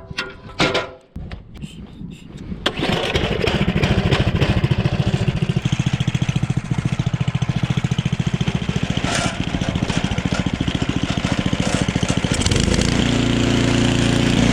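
Simplicity gas snowblower's engine starts abruptly about three seconds in, after a few clicks and knocks, then runs steadily with a rapid, even pulse; its note changes near the end.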